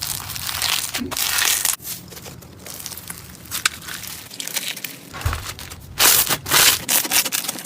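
Slime being squeezed and worked by hand close to the microphone, giving dense crackling and crinkling, loudest in a run of bursts about six to seven seconds in.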